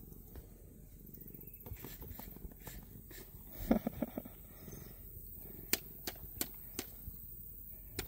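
A domestic tabby cat purring with a low, steady rumble while its belly is rubbed. There is a brief louder scuffle of handling about four seconds in, and a few sharp ticks near the end.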